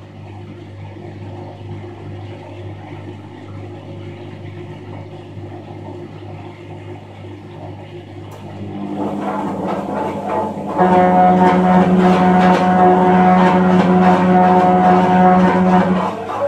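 New Crystal front-loading washing machine running a wash with a low steady hum. From about nine seconds in the hum swells into a loud, steady, pitched drone that holds for about five seconds and drops away near the end. It is the abnormal noise the owner complains of in the brand-new machine, which the service department says will pass.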